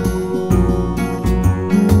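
Background music led by strummed acoustic guitar.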